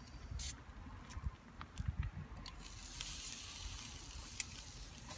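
Marinated pork laid on a hot wire grill screen over charcoal with tongs: a few light clicks, then sizzling that starts about two and a half seconds in.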